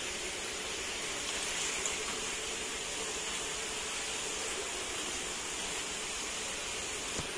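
Steady, even hiss of outdoor background noise, with a faint click about two seconds in and another near the end.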